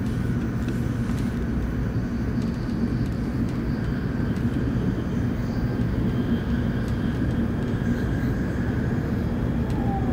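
Cabin running noise of a 700 series Shinkansen at speed: a steady low rumble with a faint steady whine above it.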